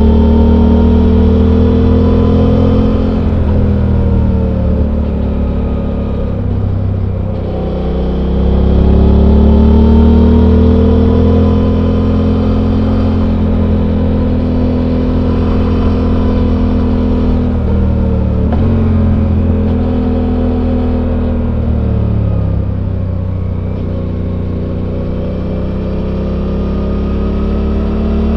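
Suzuki V-Strom 800's 776 cc parallel-twin engine with its stock exhaust, heard on board while riding. The revs rise and fall several times with throttle changes, dropping about 4 seconds in and again near 18 and 22 seconds, then climbing again.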